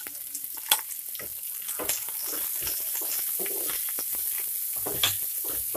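Chopped onion, spring onion and green chilli sizzling in hot oil in a non-stick frying pan, lightly sautéed while a spatula stirs and scrapes them around the pan. A few sharp knocks come first, then the sizzle grows louder and steady about two seconds in.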